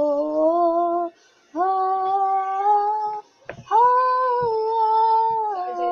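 A girl's voice singing unaccompanied, holding three long drawn-out notes with short breaks between them and the last one sliding down near the end. A brief click comes just before the third note.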